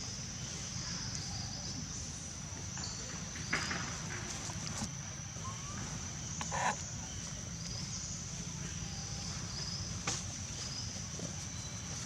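Outdoor ambience: a steady high-pitched drone under a low rumble, with short faint chirping calls scattered throughout and three brief sharper sounds, about three and a half, six and a half and ten seconds in.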